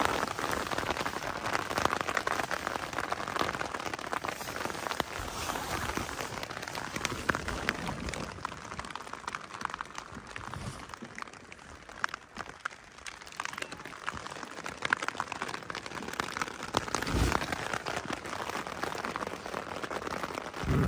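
Rain falling steadily, with many individual drops ticking sharply on a nearby surface. It eases for a few seconds about halfway through, then picks up again.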